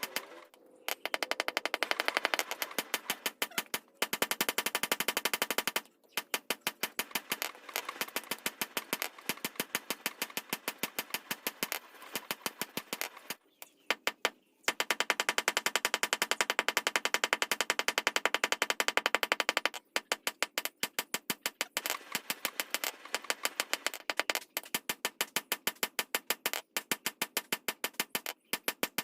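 Rapid, evenly spaced hammer blows on metal in a forge, several strikes a second, coming in runs of a few seconds with brief pauses between them, typical of forging a blade.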